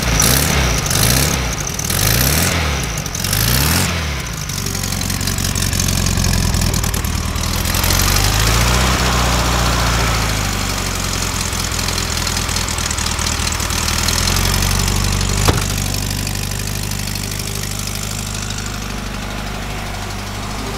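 Air-cooled flat-four engine of a VW bus with pea-shooter exhaust tips, revved in several quick blips over the first few seconds, then one slower rev about eight seconds in, then settling to a steady idle. It is running cold on a choke that doesn't work.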